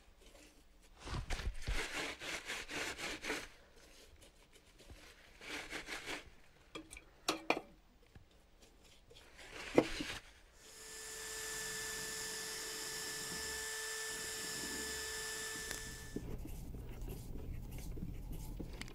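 Paintbrush strokes scraping on wood, with a few sharp clicks, then a Makita cordless drill running steadily for about five seconds into the wooden box, starting and stopping abruptly.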